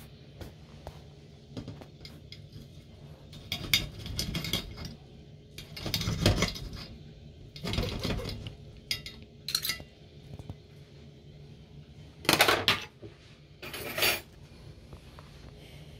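Metal cutlery scraping and clinking against a plate and pan as food is dished up, in a series of short separate clatters with a few louder ones near the middle and near the end.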